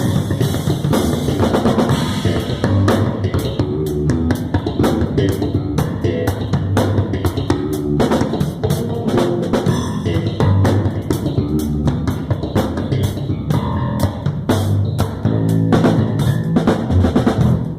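Drum kit and electric bass guitar playing a groove together during a sound-check warm-up: dense kick, snare and cymbal hits over a moving bass line.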